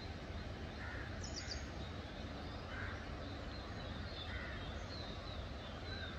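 Birds calling: a short harsh call repeats every second or two, with small birds chirping in between and a quick high four-note trill about a second in, all over a low steady rumble.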